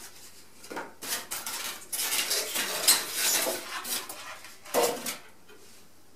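Styrofoam packing blocks being pulled out of a cardboard box, scraping and squeaking against each other and the cardboard in a run of irregular rubs, with one louder scrape near five seconds in.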